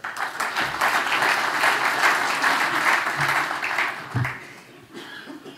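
Audience applauding, dying away after about four seconds, with a couple of low thumps near the end.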